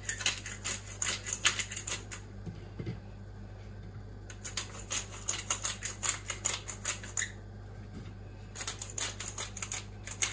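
Small seasoning jar shaken over raw cod fillets, its dried seasoning rattling in three spells of quick clicks.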